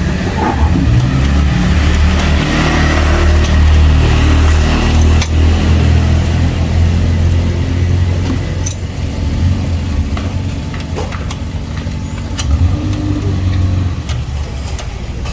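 Honda Vario 125 scooter's single-cylinder engine running with a steady hum, louder in the first half, with a few sharp clicks over it.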